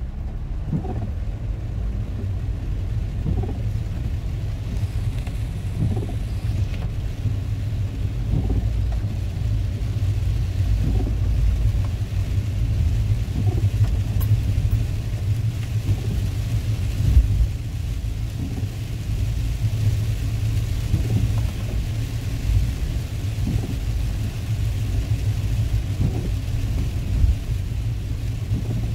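Inside a car driving in rain: a steady low rumble of road and engine noise with a soft hiss of rain, and the windshield wipers sweeping across the glass about every two and a half seconds.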